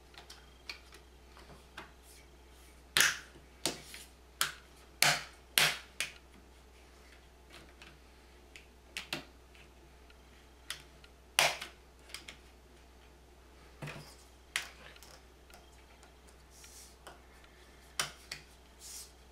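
Plastic channel covers being pressed and snapped into the slots of aluminium V-slot extrusion: a string of sharp, irregular clicks, the loudest clustered about three to six seconds in and again about eleven seconds in.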